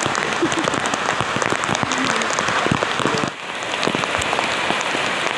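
Heavy, steady rain falling, with many drops pattering close to the microphone. The sound dips briefly about three seconds in.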